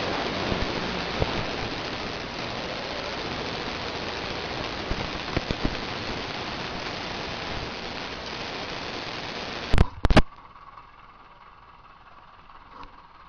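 Steady noisy rush of a running Massey Ferguson tractor mixed with wind on a handheld microphone. About ten seconds in there are two sharp clicks close together, after which the sound drops to a faint steady hum.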